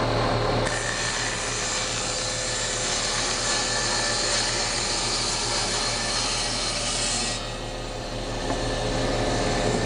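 Table saw running and cutting a plywood panel to width. The motor hum holds steady throughout, and the high hiss of the blade in the wood comes in about a second in and drops away around seven seconds.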